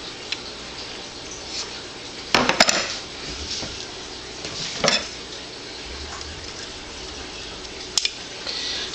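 Small hard objects being handled: a short clattering rattle about two and a half seconds in, then single sharp clicks near five seconds and near eight seconds, over a low steady background hum.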